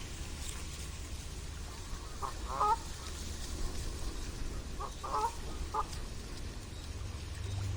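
Waterfowl on a pond calling: a few short nasal honking calls about two seconds in, and another cluster about five seconds in, over a low steady rumble.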